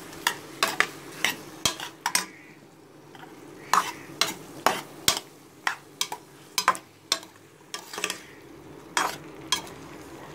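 A spoon scraping and knocking against a metal pot as raw chicken pieces are stirred into sautéing onions and tomatoes, in irregular strokes about two a second, over a faint sizzle of frying.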